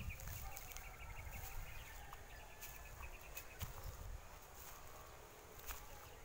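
Rural outdoor ambience: a bird gives a rapid series of short, high chirps for the first few seconds, over a low rumble and a few faint clicks.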